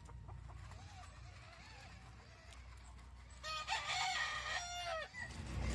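Chickens cluck faintly, then a rooster crows once about three and a half seconds in, a single call lasting about a second and a half.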